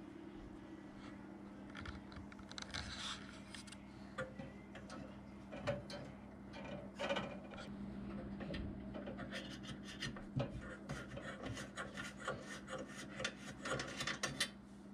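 Small irregular scraping and clicking handling sounds from a hand working the metal fittings on top of a Wilesco D145 model steam engine's boiler, busiest in the last few seconds, over a steady low hum.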